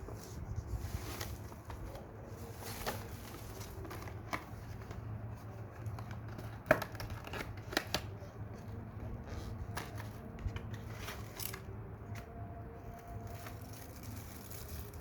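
Packaging being opened and handled: crinkling and tearing with scattered sharp clicks, the loudest about seven seconds in.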